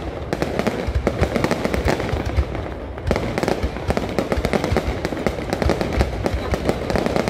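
Fireworks display: a dense, continuous barrage of bangs and crackles, easing briefly about three seconds in.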